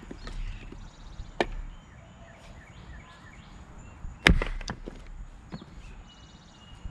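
An axe strikes a maple round once, a little past the middle, with a sharp crack, followed by a few smaller knocks as the split pieces fall. A lighter knock of wood comes about a second and a half in.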